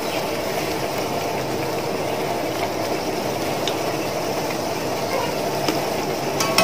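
Samosas deep-frying in hot oil in a steel pan, just put in and still pale: a steady bubbling sizzle. Near the end there is a short metallic tap as a wire spider skimmer goes into the pan.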